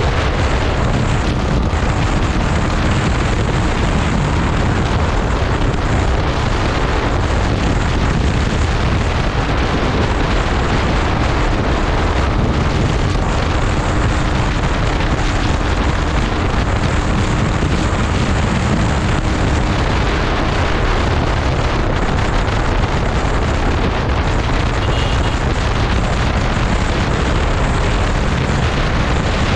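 Loud, steady wind rush buffeting the microphone of a moving motorcycle, with a faint engine hum showing through now and then.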